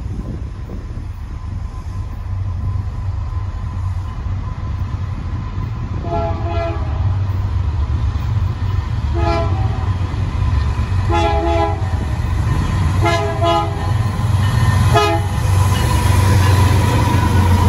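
Canadian Pacific diesel locomotive horn sounding five blasts about two seconds apart as an intermodal freight train approaches, over the low rumble of the locomotives' diesel engines and rolling wheels that grows louder as the train nears.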